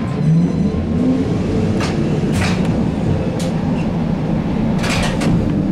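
Cabin noise of a ZiU-682G trolleybus in motion: a steady low hum and rumble from the running gear and drive. A few short, sharp rattles and knocks from the body and fittings are heard over it.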